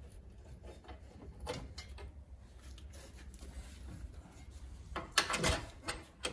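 Scattered metal clinks and knocks of a bolt and hand tools being handled at a car's front wheel hub, with a louder clatter about five seconds in.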